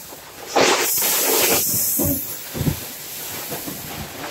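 Brown rice grains pouring from a paper sack into the steel intake hopper of a coin-operated rice mill, a loud rushing hiss of grain from about half a second in to about two seconds, then quieter rustling.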